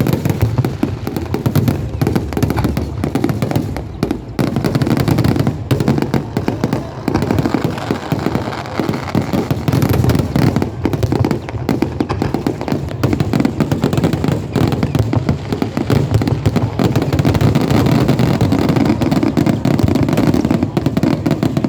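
Aerial fireworks bursting in a dense, continuous barrage, many explosions overlapping with no pause: a closing rapid-fire volley.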